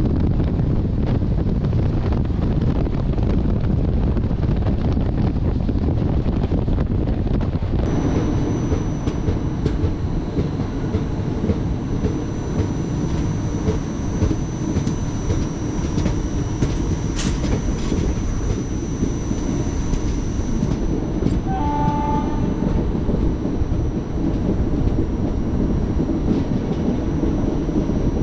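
A moving train's running noise: wind rushing past the open coach door over the rumble and clatter of the wheels on the track. About eight seconds in it changes to the steady, quieter rumble of the train heard from inside the air-conditioned coach, with a brief horn-like tone a little past two-thirds of the way through.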